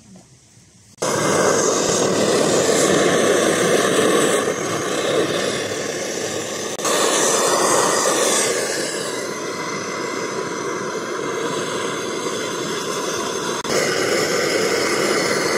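Portable gas camping stove burner running at full flame, a steady rushing hiss that starts abruptly about a second in and jumps in level a few times.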